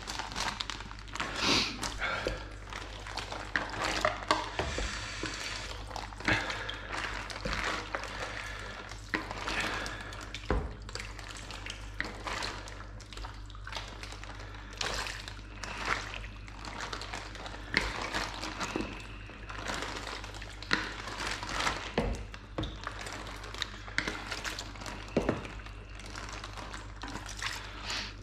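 A metal spoon scooping chunks of cooked pork head meat and broth out of a plastic bowl and into a plastic sausage-filling funnel: irregular clinks and scrapes against the bowl, with wet squelching and splashing of meat and liquid.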